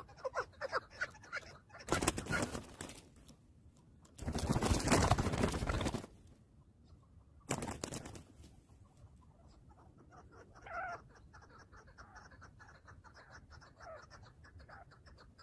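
Chukar partridge clucking in a rapid series at the start. Then come three loud bursts of rushing noise, the longest nearly two seconds, and after them faint calls and a fast, high ticking.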